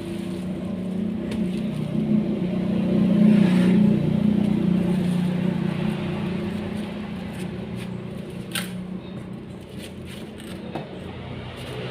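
A motor vehicle's engine hum that swells to its loudest about three to four seconds in and then slowly fades, with a few sharp clicks near the end.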